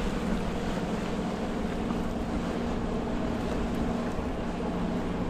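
Dive boat's engine running steadily as it motors past, with water rushing from its wake and wind on the microphone.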